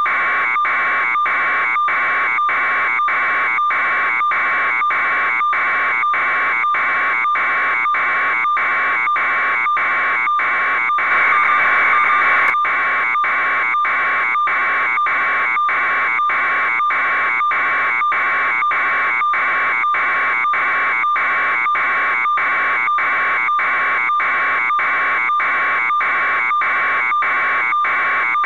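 Loud electronic alarm-style beeping that repeats steadily at about two beeps a second on one high pitch, getting slightly louder briefly about halfway through.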